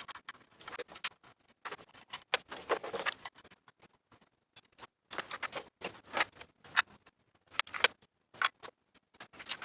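Irregular small metallic clicks and taps as bolts are handled and set finger-tight into a motorcycle engine side cover, with a short pause partway through.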